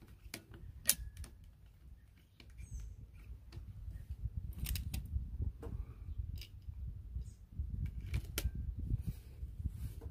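A pellet is loaded into the single-shot tray of a Dynamic Air Rifle GEN3 .22 PCP air rifle, with a series of sharp metal clicks and clacks from the rifle's action and the tray. The loudest clicks come about a second in, around the middle and near the end, over a low rumble.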